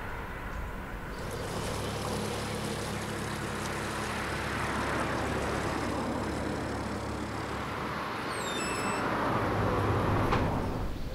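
Narrowboat's engine running steadily with a low hum as the boat moves along the canal.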